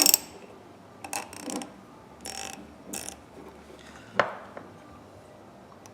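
Small metal parts of a Husky CS43 1/2-inch drive ratchet clicking and clinking as the ratchet is reassembled by hand, with the gear being pushed in against its spring. A few irregular clicks and short scrapes, loudest at the start, with a sharp knock about four seconds in.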